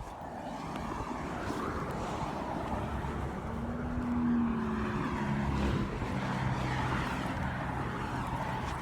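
Steady vehicle noise, a rumble with a low engine-like hum that comes in about halfway through.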